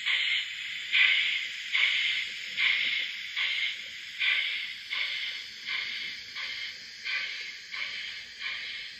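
DCC sound decoder in an OO gauge model steam locomotive playing exhaust chuffs at a slow, even pace, about one chuff every 0.8 seconds, with a hiss in each beat.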